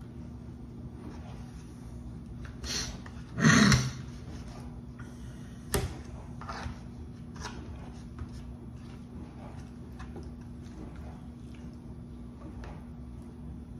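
Scattered handling sounds of things being picked up and set down: short clicks and rustles, with one louder clunk-like rustle about three and a half seconds in and a sharp click about two seconds later. Under them runs a steady low electrical hum.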